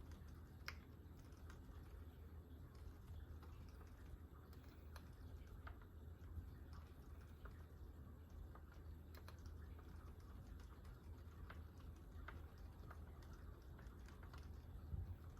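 Typing on a GMMK Pro mechanical keyboard with a brass plate and fully lubed Gazzew Boba U4 silent tactile switches: faint, irregular, muted keystrokes over a low steady hum.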